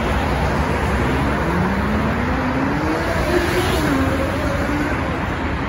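Steady road-traffic noise from a busy multi-lane road below, a constant rumble of passing cars. About halfway through, one vehicle's engine note rises in pitch as it speeds up, then wavers.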